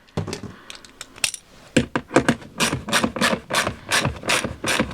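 Hand ratchet with an 8mm socket driving a door-speaker mounting screw. A few scattered clicks, then about two seconds in a steady run of ratchet clicks, about three a second.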